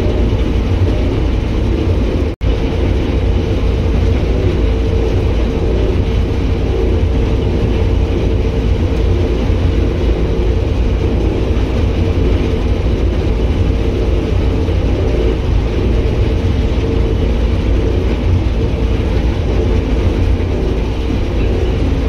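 Claas Lexion combine harvester running steadily under load while harvesting sunflowers, heard from inside the cab: a constant, loud, low drone of engine and threshing machinery. The sound briefly cuts out about two seconds in.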